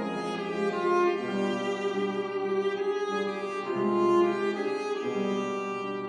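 Cello and grand piano playing classical music together, the cello holding long notes over the piano's accompaniment.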